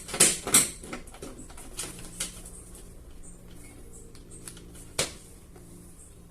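Electric fan being switched on after a shaft repair: sharp clicks and knocks from its switch and handling in the first second, another knock about five seconds in, over a faint steady motor hum.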